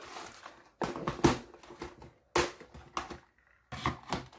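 Rings and other small jewellery being rummaged through and picked up, giving small clicks and rattles in several short bursts.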